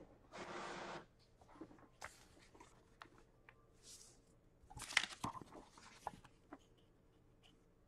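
Table-top handling noises: a sheet of paper rustling and sliding, and a clear plastic box being picked up and set down, with scattered light clicks and a sharper knock about five seconds in.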